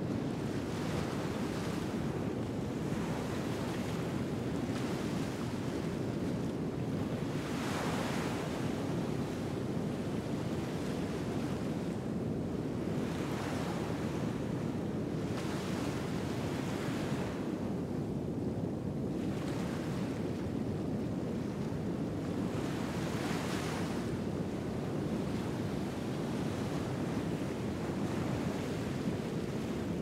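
Ocean surf: waves wash in as swells every few seconds over a steady low rumble of the sea.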